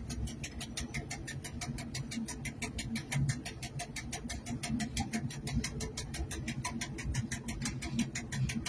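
Diesel locomotive cab with the train moving slowly: a low engine rumble under a steady, rapid ticking of about eight ticks a second.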